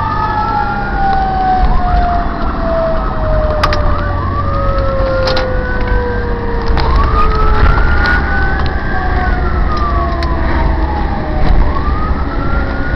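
Fire engine siren heard from inside the cab, wailing up and down in slow cycles about every three seconds. Through the first half a second siren tone slowly winds down in pitch. Low engine and road rumble runs underneath.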